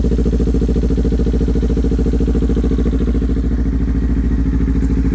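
Kawasaki Ninja 400 parallel-twin engine idling steadily through an aftermarket exhaust, an even, rapid low-pitched pulsing.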